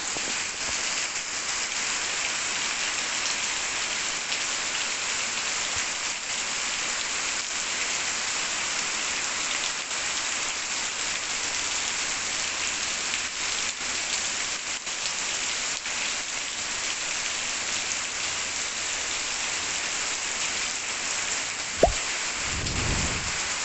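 Steady rain falling on grass, bare earth and puddles: an even hiss full of small drop impacts. Near the end, a sudden low thump followed by a short rumble.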